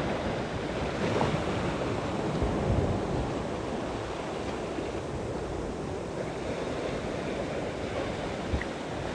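Sea surf washing over and around shore rocks, a steady wash that is louder for the first few seconds, with wind rumbling on the microphone.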